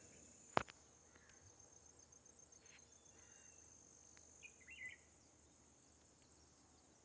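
Faint crickets trilling in a steady, high, evenly pulsed chirr. A single sharp click sounds about half a second in, and a brief chirp comes about four and a half seconds in.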